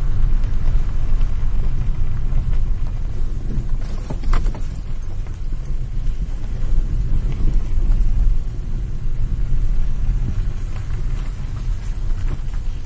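Low, steady rumble of a car moving slowly along a rough dirt forest track, with scattered light clicks and rattles.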